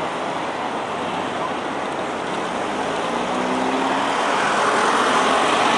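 Road vehicle engine running with road noise, its note rising and growing a little louder from about three seconds in.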